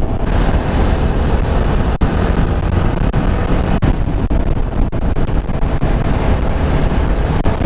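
TVS Apache RR310's single-cylinder engine running steadily at road speed, heard with wind rushing over the helmet camera's microphone.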